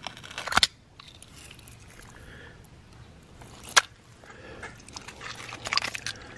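A few sharp clicks and scrapes of a knife blade against wild oyster shells as oysters are prised from a clump on a stony shore: one click about half a second in, a single sharp one near the middle, and a quick run of clicks near the end.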